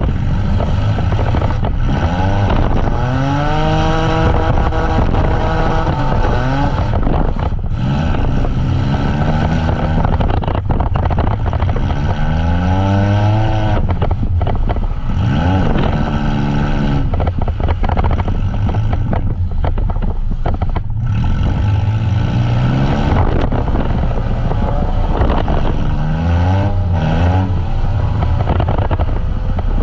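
Demolition derby van engines revving hard, their pitch climbing and dropping back every few seconds as the vans accelerate and brake between runs, over a constant din of other engines, with scattered sharp bangs.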